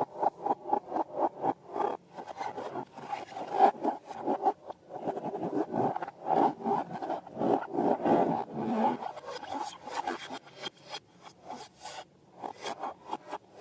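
Quick repeated rubbing and scraping strokes, about four a second at first, then denser and more irregular, with a brief pause near the end.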